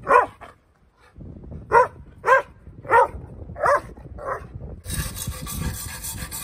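A dog barking six short times. Near the end, a wire brush scrubbing on the tractor's radiator.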